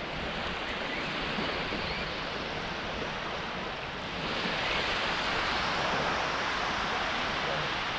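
Small waves breaking and washing up a flat sandy shore, a steady surf sound that swells louder as a wave comes in about halfway through.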